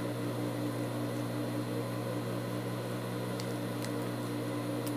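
Steady low hum of an idling industrial sewing machine motor, with a few faint clicks as the fabric is handled.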